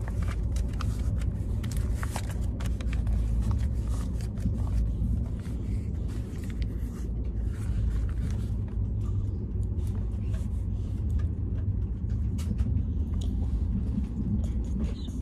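Steady low rumble of a moving passenger train heard from inside the carriage, with light paper rustling and small ticks from handling a puzzle booklet, busiest in the first half.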